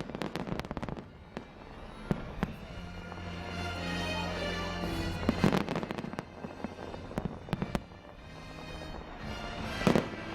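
Fireworks going off: a rapid string of bangs and crackles at first, then scattered bangs with heavier ones about five and a half seconds in and again near the end, over music.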